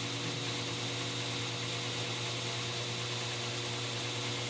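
2x72 belt grinder running free with nothing pressed against the belt: a steady motor hum under an even belt hiss.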